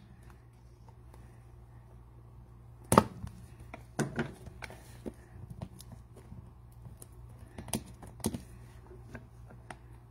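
Hands unwrapping and opening a plastic trading-card cube box: scattered plastic crinkles and clicks, with a few sharper snaps about three, four and eight seconds in, over a steady low hum.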